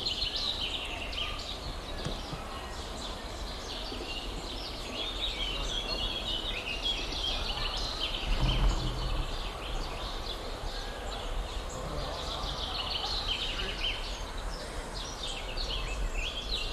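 Small birds chirping and singing in the trees, a dense, steady run of short high calls from several birds, over a low rumble on the camcorder's microphone, with a brief low bump about halfway through.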